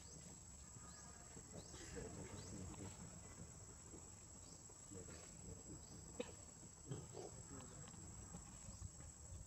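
Faint animal sounds: a few soft clicks and brief high chirps over a steady high tone.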